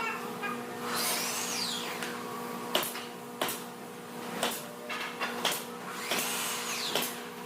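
A power tool runs in two short spells, its pitch falling each time, among several sharp knocks of wood and tools, over a steady low hum.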